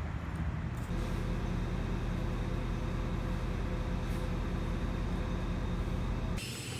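A TTC city bus running, heard from inside the cabin: a steady low engine rumble with a faint hum above it, which begins about a second in and stops abruptly near the end.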